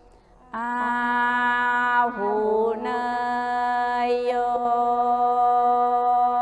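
Mantra chanting held on one long, steady note that starts about half a second in, with a brief wavering slide in pitch about two seconds in.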